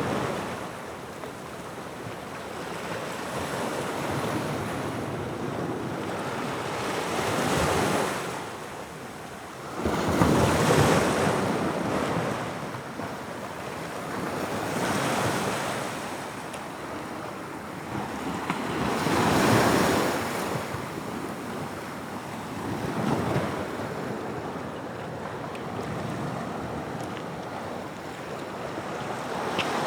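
Atlantic waves breaking on the shore in repeated surges a few seconds apart; one break comes in sharply about ten seconds in, and another peaks near twenty seconds.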